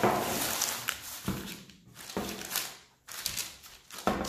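Baking parchment paper rustling and crinkling as it is slid onto a metal baking tray and smoothed flat by hand, with a few soft knocks.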